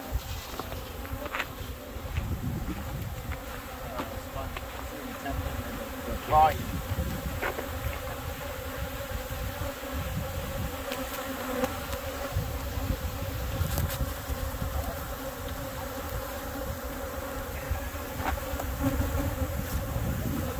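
Honey bees from opened hives buzzing all around, a steady droning hum of many bees in flight. A brief louder sound breaks through about six seconds in.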